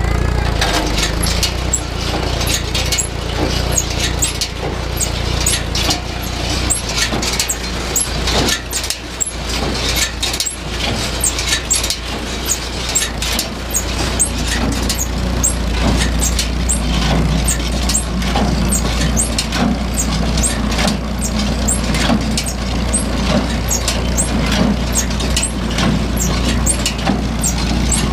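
A tractor engine running steadily while driving a Massey Ferguson No. 12 square baler through its PTO. The baler runs empty with a continuous clatter of sharp metallic clicks and knocks from its mechanism.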